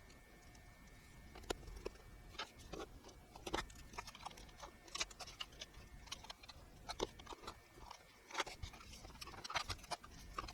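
Irregular light clicks, taps and small knocks of hands handling computer parts and plastic drive mounts, over a low steady hum with a faint high whine.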